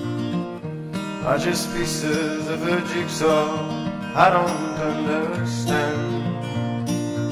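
Acoustic guitar music, strummed chords with a wavering lead melody over them through the middle few seconds.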